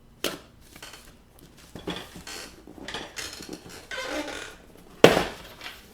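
Knife cutting the packing tape on a cardboard box, with scraping and rustling of the cardboard, and a sharp knock about five seconds in.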